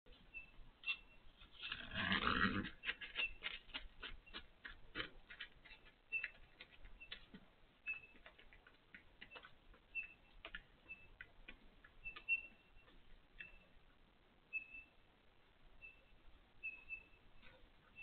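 Bighorn sheep ram drinking from a water pan: a run of quick wet clicks and laps, thick in the first few seconds and sparser after, with a louder rustling scrape about two seconds in. A short high chirp repeats about once a second over it.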